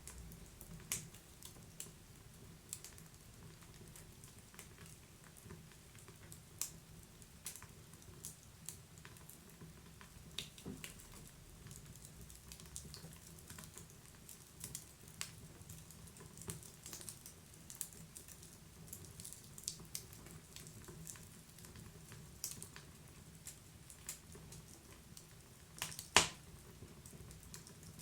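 Wood fire crackling: irregular small snaps and pops over a faint low rumble, with one sharp, louder pop near the end.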